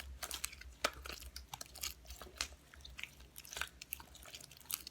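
Hands kneading and squeezing sticky slime in a bowl, making irregular small wet clicks and pops.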